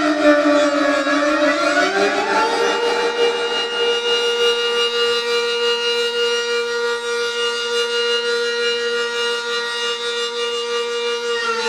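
Civil defense warning siren sounding a chord of several tones: the pitch falls, winds up again about two seconds in, holds steady, and starts to wind down near the end.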